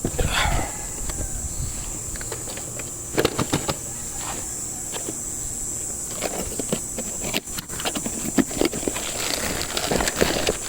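Irregular clicks and knocks of hand tools and metal suspension parts being handled while a lower ball joint is fitted, over a steady high hiss.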